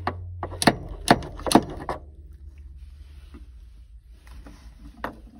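A few sharp clicks and knocks in the first two seconds, then faint handling noise, as a VW Beetle's shift coupler is worked on the shift rod to line up its grub screw hole.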